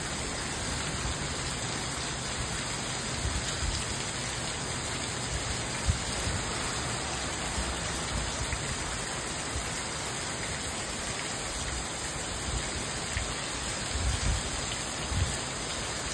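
Heavy rain falling steadily, an even hiss, with a few short low bumps now and then, the sharpest about six seconds in and more near the end.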